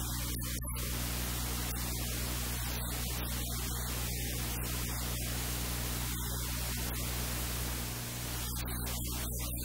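Steady hiss and static over a low, steady electrical hum: a noisy recording track with no clear voice or kitchen sound standing out.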